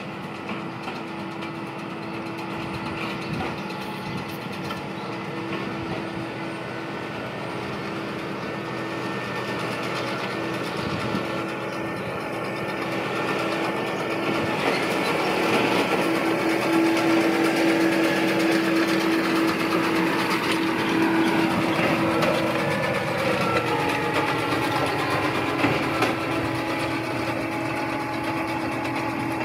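A machine or engine running steadily with a constant hum, growing louder over the first two-thirds, then a few tones sliding down in pitch near the end.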